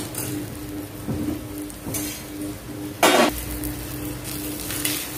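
Ghee sizzling under an onion paratha on a hot iron tawa, a steady hiss with a few light clicks of the tongs. About three seconds in comes one short loud burst as the paratha is lifted and turned with steel tongs.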